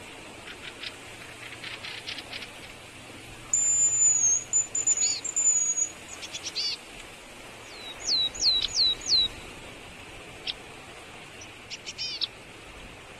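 Small birds calling: a high, thin held whistle about three to four seconds in, then four quick notes that each sweep downward around eight seconds in, with short chip notes scattered between.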